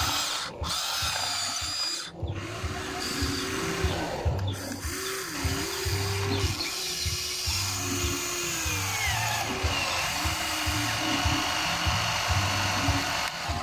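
Electric motors of a Huina 1594 RC excavator whining in short on-off runs, the pitch rising and dropping as the arm and bucket work through wet mud.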